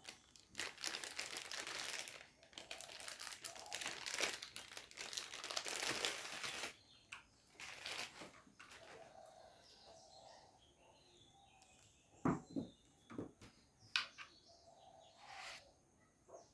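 Plastic packaging crinkling as it is handled for several seconds, then a few light knocks and handling sounds.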